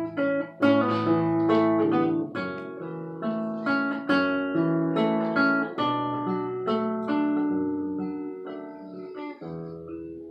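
Solo acoustic guitar playing an instrumental break in a slow ballad: picked and strummed chords, each note ringing out, growing gradually softer toward the end.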